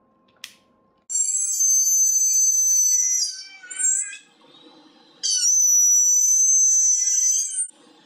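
Dental lab micromotor handpiece with a small drill bit running at a steady high-pitched whine, spinning down with a falling pitch about three seconds in, then whining again for about two and a half seconds. A short click comes just before the first run.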